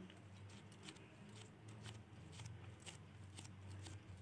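Near silence: faint room tone with a low steady hum and a few soft ticks.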